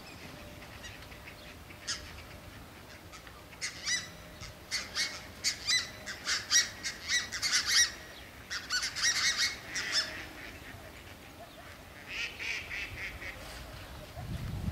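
Geese calling: a quick run of short, high honks, several a second, from about four to ten seconds in, then a fainter few near the end.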